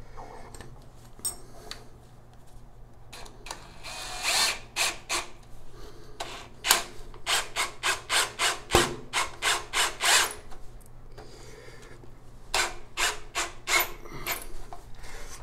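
Ryobi cordless drill driving the mounting screw of a brass shower slide-bar bracket into the tiled wall. It runs in a series of short quick spurts about three a second, with a pause in the middle.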